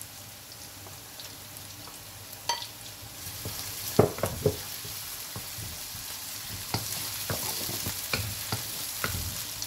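Chopped onions and spices sizzling in oil in an aluminium karahi, stirred with a slotted wooden spatula that knocks and scrapes against the pan. The sizzle grows louder about three seconds in, and the sharpest knocks come around four seconds in.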